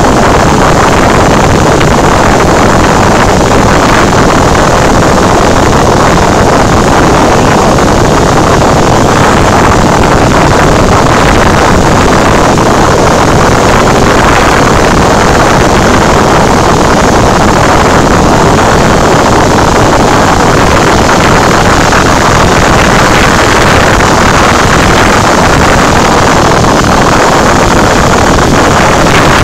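Cessna 172's piston engine and propeller in cruise flight, heard inside the cabin as a loud, steady drone mixed with rushing airflow.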